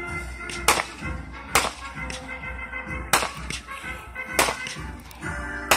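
Fireworks going off: five sharp bangs roughly a second or so apart, over music playing in the background.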